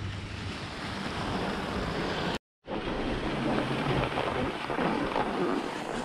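Skis sliding and scraping over groomed snow, with wind on the camera microphone. The sound cuts out briefly about two and a half seconds in, then the same steady snow-and-wind noise goes on as the skis slide up a T-bar drag-lift track.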